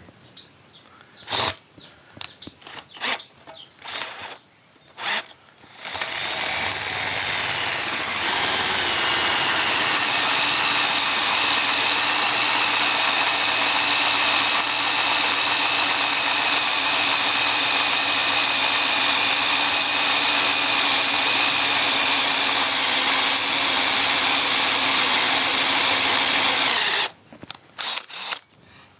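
Electric drill boring through a broken stud in a David Brown 990 tractor's final drive casting, running steadily with a whine for about twenty seconds before stopping near the end. A few knocks and clicks come before it starts and after it stops.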